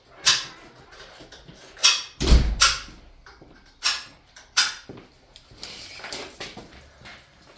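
A few sharp knocks and clatters of tools and metal parts being handled, with one heavier, deeper thump a little over two seconds in.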